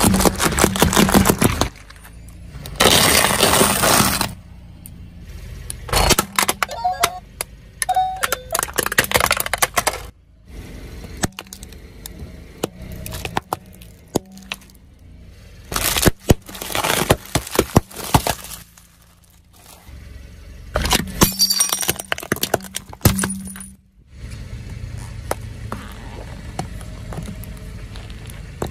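A car tyre crushing plastic food containers, pudding cups and margarine tubs: several separate bursts of cracking and crunching plastic with squelching contents, with quieter stretches in between.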